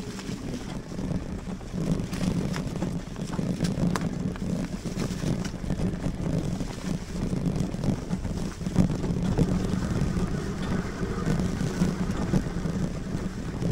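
Riding noise of a Lectric XPeak fat-tire electric bike on a trail: a steady low rumble from the 26x4 tires and bike, with wind on the microphone and a few sharp clicks and rattles in the first few seconds.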